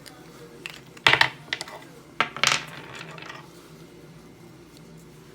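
Small hard objects clinking and clattering on a workbench: a sharp clink about a second in and a few more clinks around two and a half seconds in.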